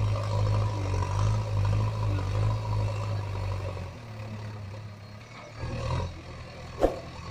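A steady low engine drone that fades about four seconds in and swells again briefly near six seconds, with one sharp click near the end.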